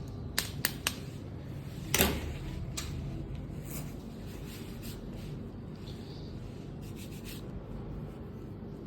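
Comb and electric hair clipper working through hair: rubbing, over a steady low hum. Three sharp clicks come in the first second and a louder one about two seconds in, with softer ticks after that.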